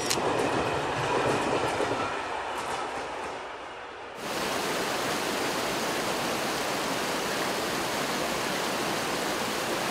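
A train running, with rumble and wheel clatter, fading over the first few seconds. About four seconds in it cuts abruptly to the steady rush of a mountain stream's white water.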